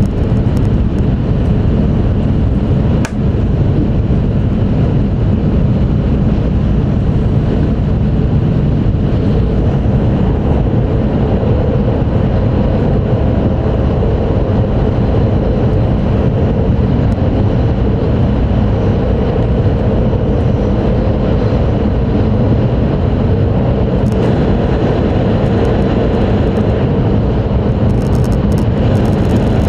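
Steady interior running noise of an E5 series Shinkansen travelling at speed: a loud, even low rumble of wheels on rail and air rushing along the car body, with one brief sharp click about three seconds in.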